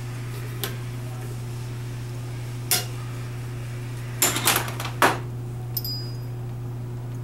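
Metal hand tools clicking and clattering on a steel workbench as a torque wrench is handled and set down: a few light clicks, then a burst of metal clatter about four seconds in and a short ringing clink near the end, over a steady low hum.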